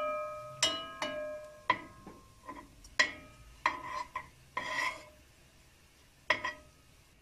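Metal spoon knocking and scraping against a nonstick pan while stirring ground walnuts and onions as they sauté. The pan rings briefly after each of about a dozen irregular knocks.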